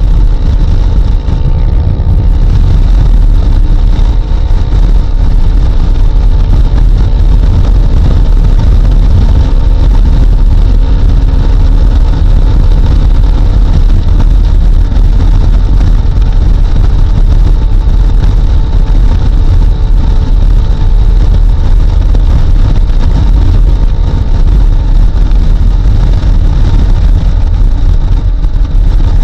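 Honda CRF250L single-cylinder motorcycle riding at highway speed: a loud, steady low rumble of wind rush on the microphone, with the engine running underneath at a constant speed.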